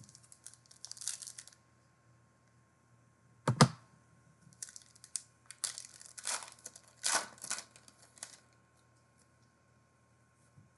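A sports trading-card pack being torn open and its foil wrapper crinkled, in short rustling bursts, with a single thump about three and a half seconds in.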